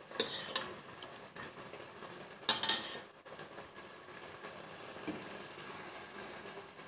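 A spoon scraping and clinking against the steel bottom of a pressure cooker as melting ghee is stirred, loudest about two and a half seconds in. Under it, the faint steady sizzle of the ghee heating.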